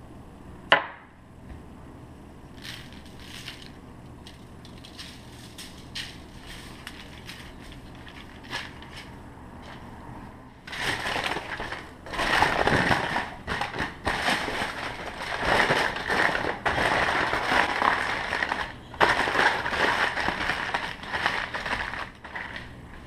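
Aluminium foil crinkling and rustling as it is folded and pressed around a seasoned ribeye roast, starting about ten seconds in and going on until near the end. Before that, a single sharp knock about a second in and a few faint ticks.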